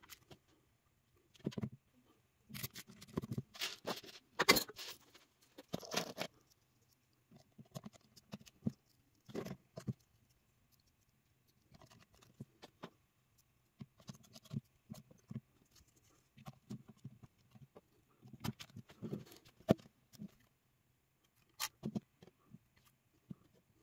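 Plastic LEGO bricks and pieces clicking, tapping and rubbing as a small brick-built model is handled and its hinged top section lifted. The clicks are irregular and scattered, busier about three to six seconds in and again near the end, with one sharp click near the end, over a faint steady hum.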